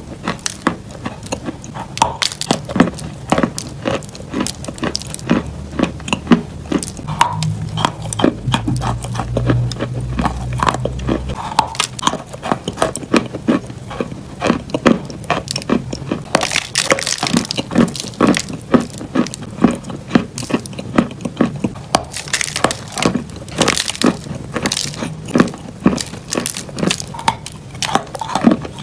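Close-miked crunching and chewing of a stick of blue chalk, with many sharp crackles in quick succession. A low hum runs for a few seconds about a third of the way in.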